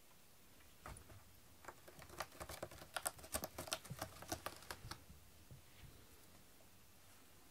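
A cat clawing a corrugated cardboard scratcher: a quick run of sharp scratching strokes that starts about a second in and stops at about five seconds.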